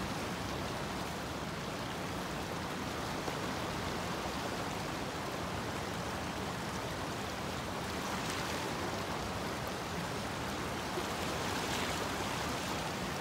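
Fast-flowing stream rushing steadily: an even wash of water noise.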